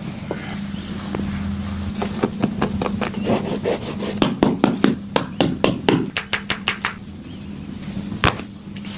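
Hands rubbing and pressing on a back during a chiropractic treatment, with many short sharp clicks and pops. A quick run of them comes about four seconds in, several a second for about two seconds, over a steady low hum.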